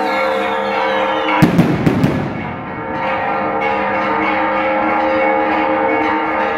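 Church bells ringing steadily, with a burst of fireworks about a second and a half in: four or five sharp bangs within about half a second, led in by a thin falling whistle.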